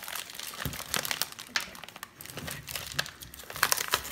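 Clear plastic vacuum-pack bag crinkling and rustling in irregular crackles as a frozen turkey breast is pulled and worked out of it by hand.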